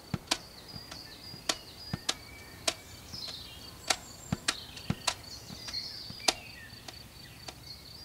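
Outdoor nature ambience: an insect's steady high trill with a few faint bird chirps, broken by sharp irregular clicks about twice a second that are the loudest sounds.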